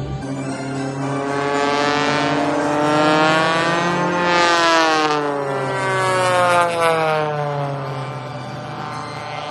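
Aircraft flying past low over the field, its engine sound swelling and rising in pitch to a peak about halfway through, then falling away as it passes.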